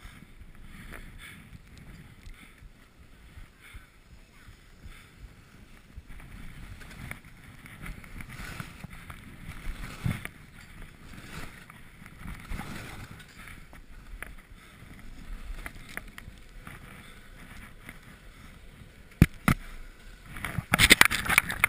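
Skis sliding and turning through soft, chopped snow: a hiss that swells and fades with each turn, with wind on the microphone. Near the end come a couple of sharp knocks and a louder burst of scraping.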